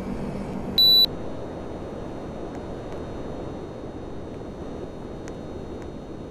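Air conditioner giving a single short, high electronic beep about a second in, over the steady rush of its running fan. A low hum cuts out at the beep.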